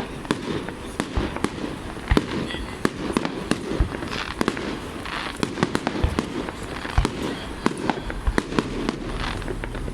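Fireworks display going off: many sharp bangs and cracks at irregular intervals, often several a second, over a continuous rumble of further bursts.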